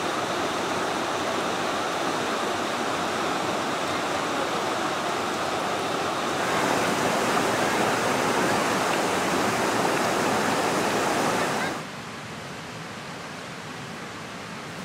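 Steady rush of flowing creek water. It grows louder about six seconds in, then drops suddenly to a softer rush at about twelve seconds.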